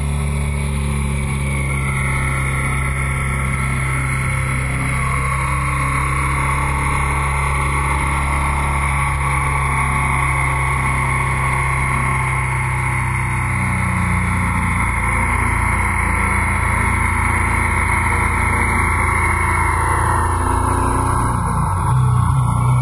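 Motorcycle engine running at a steady cruising speed, heard from the bike itself. Its note holds level and gets louder just before the end.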